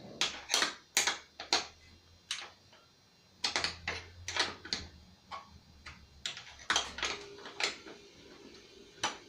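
Irregular sharp metallic clicks and taps, some in quick runs, from hand tools working a bolt and nut on a John Deere 111 lawn tractor.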